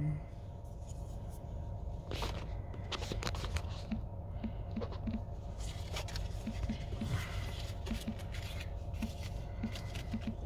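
Steady low rumble inside a car cabin, with scattered light clicks and rubbing from a handheld phone being handled.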